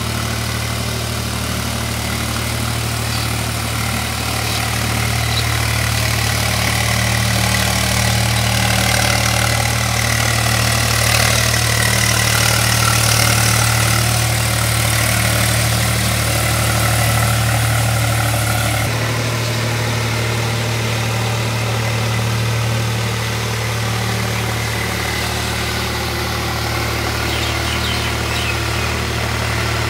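Swaraj 735 FE tractor's three-cylinder diesel engine running steadily under load as it churns through a flooded paddy field, with water and mud splashing. The higher hiss drops away suddenly about two-thirds of the way through while the engine's low drone carries on.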